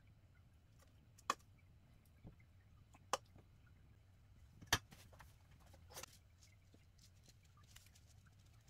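Four short, sharp clicks or taps spaced a second or two apart, the third the loudest, over a faint low hum.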